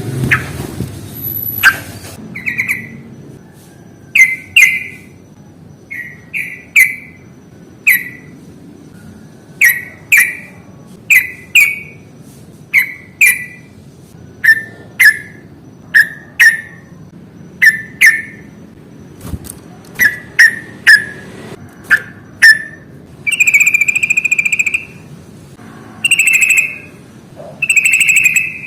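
Yellow-vented bulbul calling: a long run of short, sharp chirping notes, about one or two a second, then a few longer drawn-out notes near the end.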